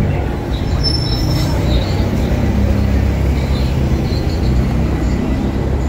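Steady low rumble of motor traffic close by, with the hum of a heavy vehicle's engine.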